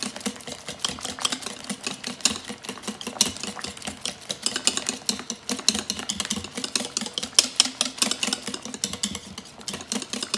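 Wire whisk beating thin cake batter in a ceramic mixing bowl: a fast, steady run of clicks and scrapes as the wires hit the bowl's sides and churn the liquid, mixing in an egg and vanilla.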